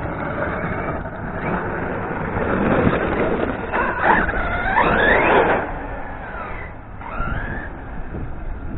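Radio-controlled car driving hard, its motor whining up and down in pitch as the throttle is worked, loudest about four to five and a half seconds in, over a steady rush of tyre and surface noise.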